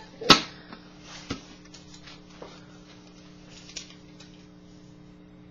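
A sharp knock just after the start, then faint crinkles and small clicks of a folded paper slip being unfolded by hand, over a steady low hum.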